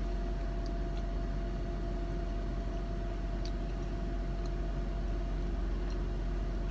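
Steady hum of a car idling, heard from inside the cabin: a deep constant rumble with a steady mid-pitched drone over it. A few faint ticks.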